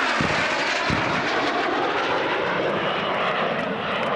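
Jet noise from a CF-18 Hornet's twin General Electric F404 engines on a fast low pass, a loud steady rushing sound. Two dull thuds from the wall-of-fire pyrotechnic charges come in the first second.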